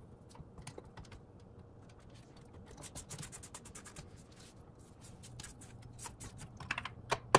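Silicone spatula scraping cookie batter off the sides of a stainless steel stand-mixer bowl: a run of light scratches and small taps against the metal, with a sharper tap near the end.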